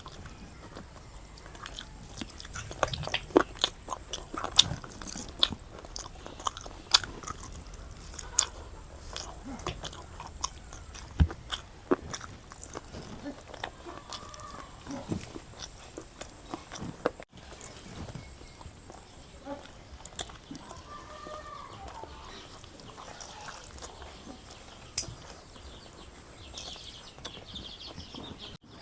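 A person chewing and biting food close to the microphone, a meal of chicken biryani, curry, boiled egg and raw onion and chilli salad, with irregular sharp mouth clicks and occasional crunches.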